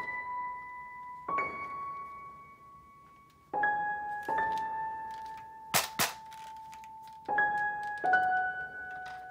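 Slow background music of single sustained electric-piano notes, one every second or two, with two sharp clicks close together about six seconds in.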